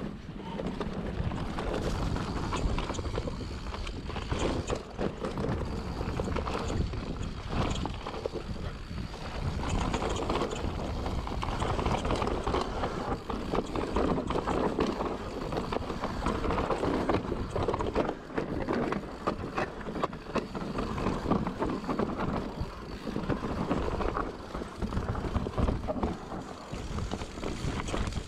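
2020 Specialized Enduro mountain bike descending dirt singletrack, heard from a camera on the bike: steady tyre noise on dirt, frequent rattles and knocks as it goes over bumps, and wind on the microphone.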